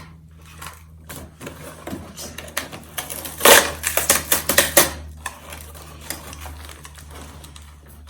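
Rattling, crackling handling of a toy's packaging as it is worked open, with a flurry of rapid clicks about three and a half seconds in lasting over a second, over a steady low hum.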